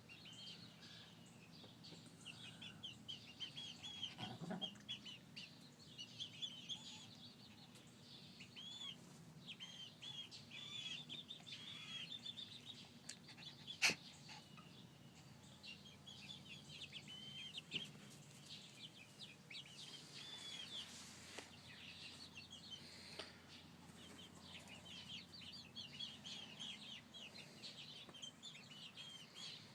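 A flock of young chickens peeping: many short, high, rising-and-falling chirps one after another, soft throughout. A single sharp click about 14 seconds in.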